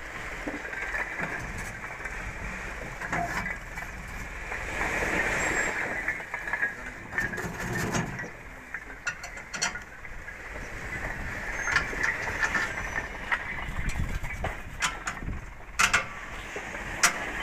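Machinery running with a steady noisy drone, scattered clicks and knocks, and a few sharper knocks near the end.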